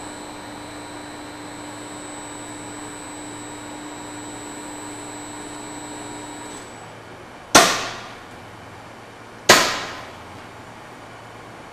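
Screw feeders of a Brabender batching system running with a steady machine hum and whine, which stops about six and a half seconds in as the batch is dispensed. Then come two loud, sharp pneumatic bursts about two seconds apart, the feeder spout valve closing and the retractable spouts pulling up.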